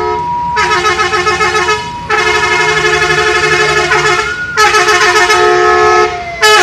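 Indonesian bus 'telolet' multi-tone air horn playing its tune: three long runs of stepping, warbling notes with short breaks between them. A low engine rumble sits underneath, and another tone slides slowly down in pitch in the last couple of seconds.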